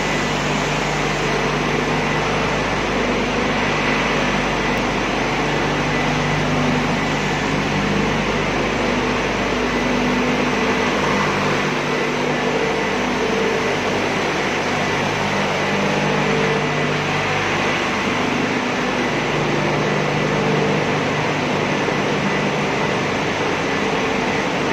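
A machine running steadily: an even whirring noise with a low hum of a few steady tones underneath that swell and fade slightly.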